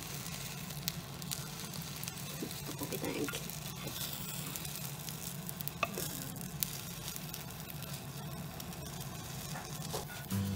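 Beaten egg sizzling in a rectangular tamagoyaki pan as it is rolled up with chopsticks, with scattered light clicks of the chopsticks against the pan over a steady low hum.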